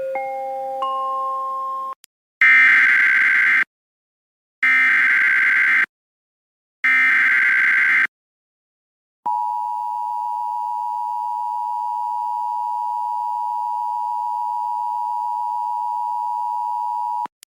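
Emergency Alert System tones: a short rising three-note chime, then three buzzing one-second bursts of SAME header data about a second apart. Then comes the two-tone EAS attention signal (853 and 960 Hz), held steady for about eight seconds before it cuts off.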